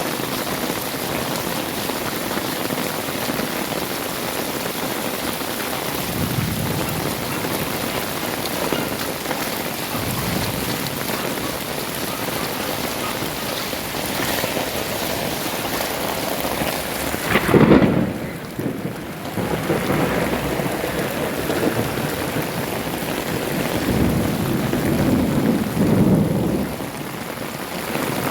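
Heavy rain pouring steadily, with thunder rumbling: a loud peal a little past halfway and further rumbling near the end.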